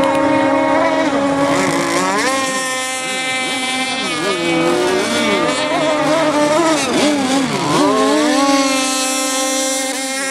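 RC speedboat engines running at high revs. One holds a steady high pitch while another's pitch swoops up and down repeatedly through the middle, as the throttle is worked and the boats turn.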